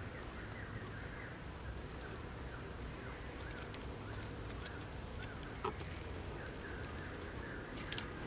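Outdoor rural background of small animal chirps repeating over a low rumble. A thin, steady high tone comes in about halfway, and a few light clicks sound near the end.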